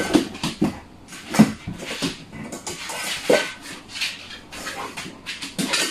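A metal dog bowl clanking and scraping on the floor as a Labrador noses and mouths at it, trying to pick it up. There are a handful of separate clanks, the loudest about a second and a half in.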